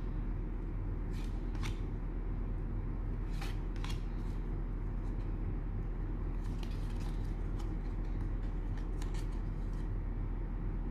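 Trading cards being handled: scattered light clicks and scrapes of cards sliding against each other, over a steady low hum.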